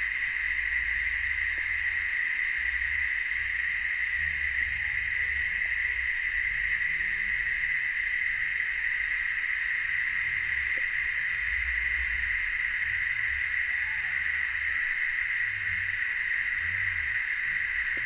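Steady chorus of cicadas, an even, unbroken high drone. A low uneven rumble runs underneath, and there is a faint short call about fourteen seconds in.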